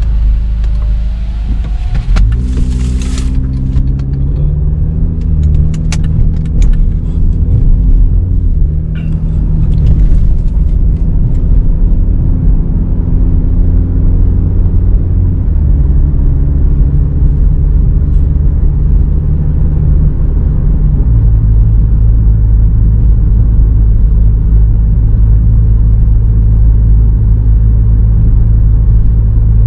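A 2017 GMC Terrain's engine, with a K&N cold air intake and a Flowmaster Delta exhaust, pulling uphill, heard from inside the cabin at the driver's seat. It is a low, steady drone whose pitch changes in steps several times. A brief rush of noise comes about two seconds in.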